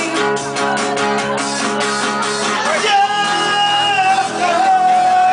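A live rock band playing loudly, with drums keeping a steady beat. About halfway in, a singer holds one long note over the band.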